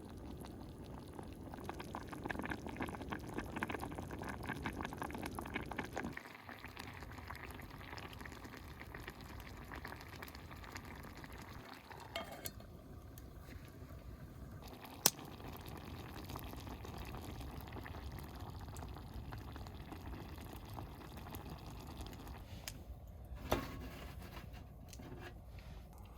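Liquid bubbling and splashing with a dense crackle for about six seconds, stopping abruptly, then a low steady background broken by three sharp clicks.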